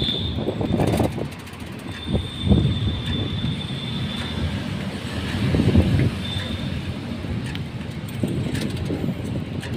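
Steady road and engine noise from a moving vehicle, a low rumble that swells briefly about 2.5 and 6 seconds in. A thin, high, steady tone sounds near the start and again from about 2 to 4 seconds in.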